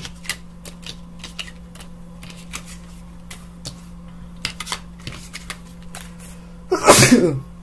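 Tarot cards being picked up off a wooden table: light clicks and taps of card on card and card on wood, over a steady low hum. Near the end comes one loud, short human sneeze.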